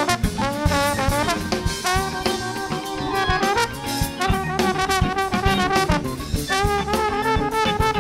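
Live funk-jazz band: a horn section of saxophone and trombone plays a riff with bent notes over a steady drum kit groove.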